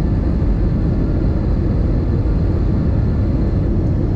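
Steady cabin noise inside an Airbus A321-200ceo airliner during descent: the constant low drone of its jet engines and the air rushing past the fuselage, even and unbroken.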